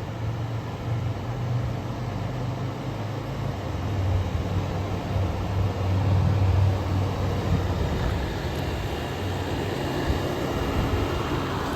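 Fedders A2Q10F2BG 10,000 BTU window air conditioner running: the steady hum of its Rotorex rotary compressor under the rush of its fan. The unit is running normally on a full charge.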